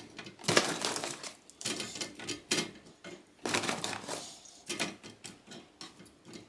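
Spring rolls being put into the air fryer basket on its grill insert: a series of about five rustles and light clatters.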